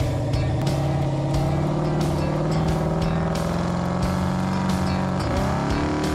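Built big-block V8 of the tow rig running hard under load as it drags a heavy pickup through deep sand, its revs held steady, then dipping and climbing again about five seconds in.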